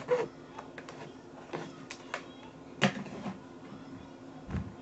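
Kitchen items being handled: scattered light clicks and knocks, with louder knocks near the start and about three seconds in, over a steady low hum.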